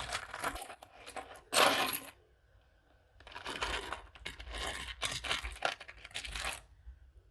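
Loose metal earrings clinking and rattling as a hand rummages through a pile of jewelry, with rustling. The sound comes in two spells with a short lull between them, and the loudest rustle is about one and a half seconds in.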